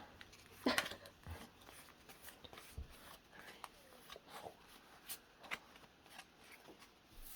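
Trading cards being handled and slid against one another: soft, scattered ticks and rustles, the loudest a little under a second in.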